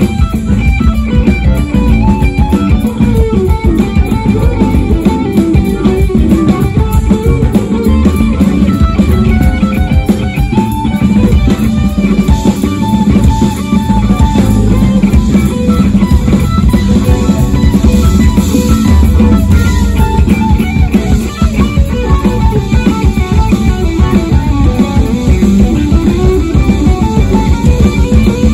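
Live jazz-fusion band playing loud: electric guitar lead over bass guitar, drum kit and keyboards, picked up on a phone's microphone.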